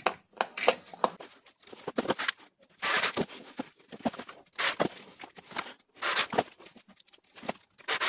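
Irregular clicks, knocks and rustling scrapes of a plastic toy RC rock crawler's chassis and front axle being handled and turned over on a workbench.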